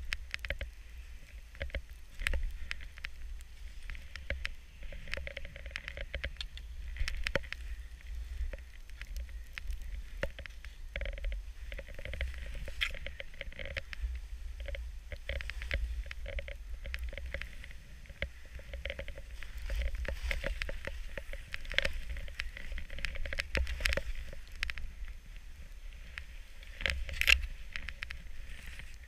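Skis running through deep powder snow, with many short scraping crunches, the loudest near the end, over wind noise on the body-mounted camera's microphone.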